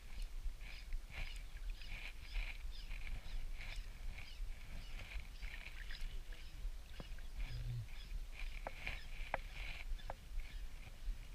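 Shimano Stradic spinning reel cranked steadily to retrieve a lure, giving a soft rhythmic whirr with each turn of the handle, about two turns a second. A steady low rumble runs underneath.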